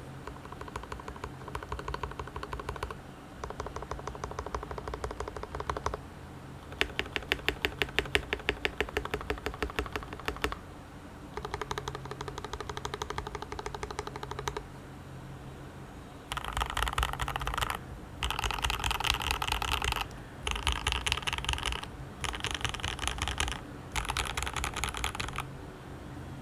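Custom KBD75v2 mechanical keyboard with a brass plate, factory-lubed Tangerine v2 67g linear switches and GMK keycaps, being typed on in several bursts of a few seconds with short pauses between. In the middle comes a run of louder, evenly spaced keystrokes, about six a second.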